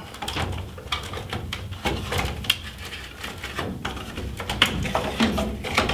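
Irregular plastic clicks and knocks from a whole-house humidifier's filter housing being handled as the filter assembly is pulled up and snapped out.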